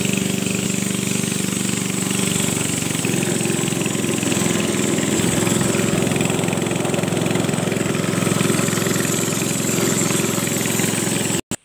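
Small boat engine running steadily as the narrow wooden boat cruises along the river. Its note shifts slightly about two and a half seconds in, and the sound cuts off suddenly just before the end.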